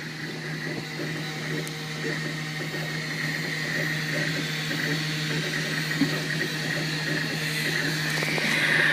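A 3D printer is running. A steady hum is overlaid by a higher whine from its stepper motors, which shifts in pitch as the print head moves and grows louder near the end.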